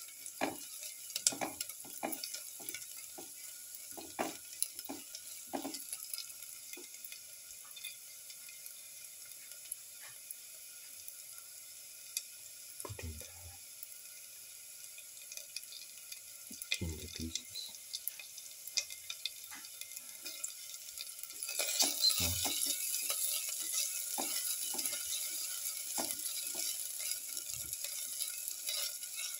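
Shallots frying in oil in a metal pan, sizzling, while a spatula stirs them with scrapes and clicks against the pan and a few dull knocks. The sizzle grows louder about two-thirds of the way in.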